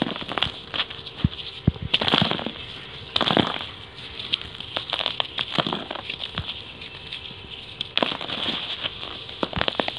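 Dry sand-cement-clay balls crushed and crumbled by hand: gritty crackling and crunching with small pieces and powder falling. There are heavier crunches about two, three, five and a half and eight seconds in.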